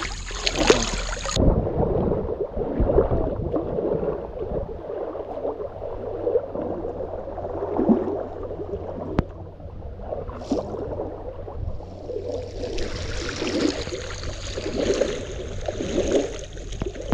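River water sloshing and gurgling close to the microphone as people wade through it. From about a second in, the sound turns muffled, with the high end gone, and it opens up again about three quarters of the way through.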